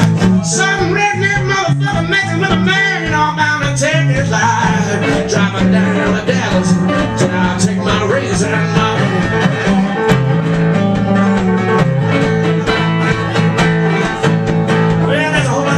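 Live acoustic guitar played with a man singing along, a bluesy country-style song.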